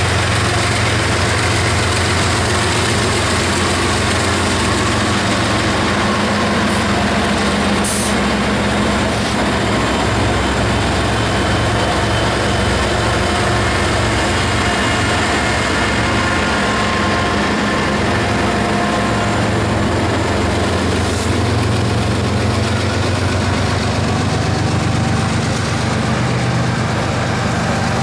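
Norfolk Southern freight train passing close by: its diesel locomotives, led by a GE ES44AC, run past, followed by freight cars rolling over the rails. Steady loud rumble throughout, with a few brief faint high squeals.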